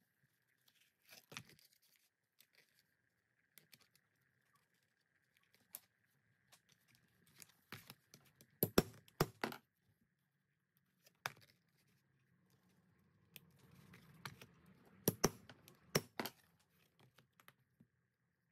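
Hands handling leather and tools at a workbench: scattered rustling and scraping with several sharp clicks, the loudest a pair about nine seconds in and another pair about fifteen to sixteen seconds in.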